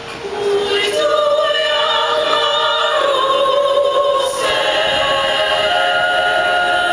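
Women's choir singing in several parts, the voices coming back in within the first second and then holding chords, with a short breathy hiss about four seconds in.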